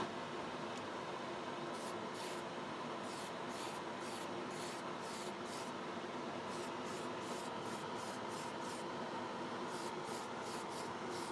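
Primer being sprayed in many short, quick bursts of hiss, over a steady mechanical hum.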